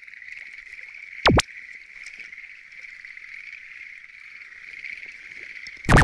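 A chorus of many frogs calling steadily, heard as a continuous high-pitched din. About a second in, a brief loud sound sweeps down and back up in pitch, and just before the end a loud burst of rapid pulsing begins.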